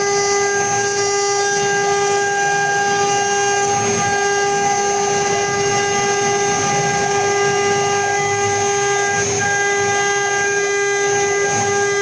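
Spindles of a four-spindle CNC router running at constant speed: a steady, unwavering high whine over rougher machine noise.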